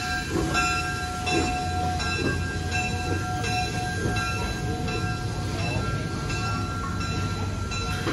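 Steam locomotive bell ringing steadily, struck about once a second, as the small 0-4-0 tank engine rolls slowly, with the rumble of the locomotive and rolling stock underneath.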